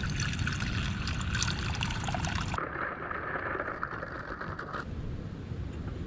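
Water running from the tap of a plastic water container into a stainless steel saucepan, a splashing trickle. After an abrupt change about two and a half seconds in, it gives way to a steadier hiss, which grows quieter again just before five seconds.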